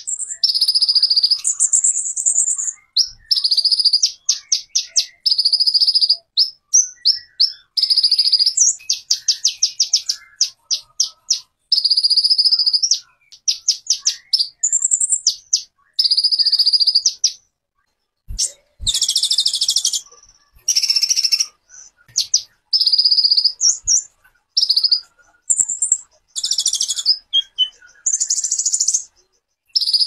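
A songbird singing loud, high-pitched phrases, long trills alternating with fast runs of short notes, each phrase breaking off into a brief silence before the next.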